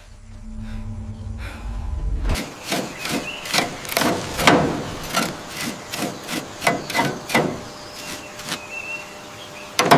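A low rumble, then, from about two seconds in, a stiff bristle brush scrubbing a rough, encrusted surface in quick back-and-forth strokes, about two a second, fading out near the end. A sharp knock comes right at the end.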